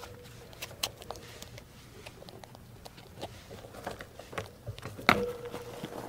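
A group of rats feeding in a cage: irregular crunching and light pattering clicks, with one sharper, louder click about five seconds in.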